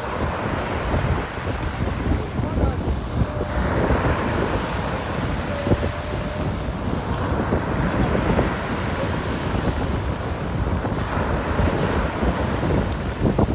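Strong wind buffeting the microphone over surf washing ashore on a choppy sea, the rush swelling and easing every few seconds.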